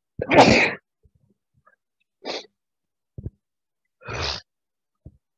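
A person sneezing: one long loud sneeze shortly after the start, then two shorter sneezes about two and four seconds in, with a couple of faint knocks between.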